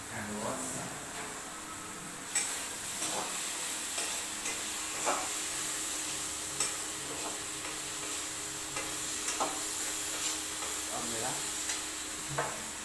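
Food sizzling in an aluminium kadhai on a gas stove while a spatula stirs it, scraping and knocking against the pan at an irregular pace, with one sharper knock about two and a half seconds in.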